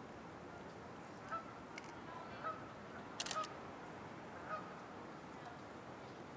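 Short distant bird calls, one roughly every second, with a quick cluster of sharp clicks about three seconds in.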